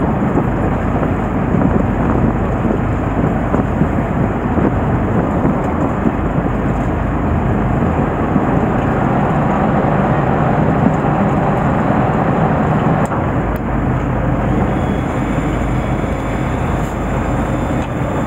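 Steady rumbling noise on a boat deck: wind buffeting the microphone mixed with a boat's engine running and water against the hull.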